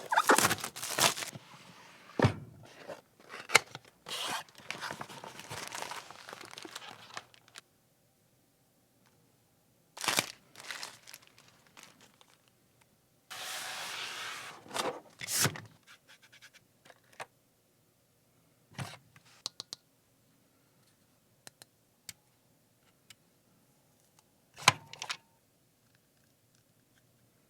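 Unboxing handling noise: packaging rustling and scraping in bursts, broken by sharp clicks and thuds as pieces are lifted out and set down, with quiet gaps between.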